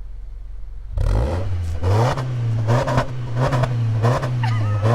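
2020 Subaru Forester Sport's 2.5-litre flat-four, breathing through an HKS Legamax aftermarket exhaust, idling and then blipped in about five quick revs starting about a second in, heard from behind the car at the tailpipe.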